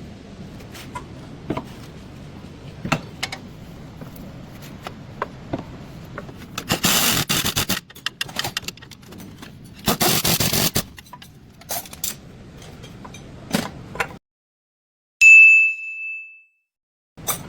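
Metal tool work: scattered clinks and knocks over a low steady background, with two hissing bursts of about a second each. Near the end, after a cut to dead silence, a single bright ding rings out and fades.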